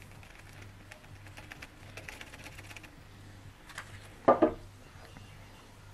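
Light scattered ticks and patter as boric acid powder is tipped off a folded paper into the neck of a small glass bottle, followed by a short louder knock about four seconds in.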